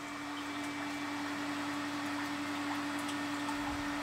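Swimming pool filter pump running with a steady hum, water rushing through it as it flushes dirty water out of the filter.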